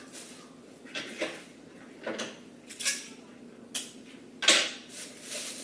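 A mylar emergency blanket crinkling and rustling as it is pulled tight and taped onto a cardboard box, in about six short, irregular bursts, the loudest near the end.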